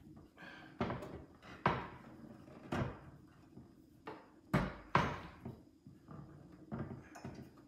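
Irregular knocks and clicks of metal parts of a roof-mounted bike rack being handled and fastened: the rear wheel holder and its bolts knocking against the rack's tray as a hex key works them. Several sharp knocks are spread unevenly, some with a short ring.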